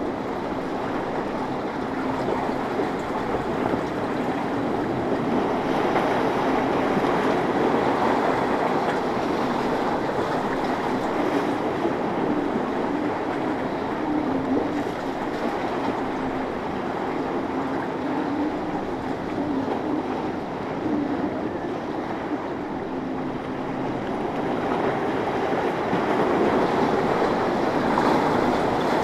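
Outboard-powered boat running through choppy inlet water, its engine noise mixed with waves, spray and wind; a faint steady engine hum stands out through the middle stretch.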